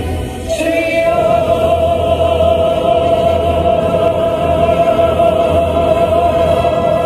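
Orchestral show soundtrack played loudly over loudspeakers: a sustained choir-like chord over a low bass drone, with a new held note coming in about half a second in.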